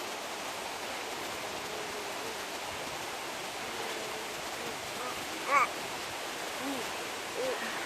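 Latourell Falls waterfall rushing, a steady even roar of falling water. A brief high voice sound cuts in once about two-thirds of the way through.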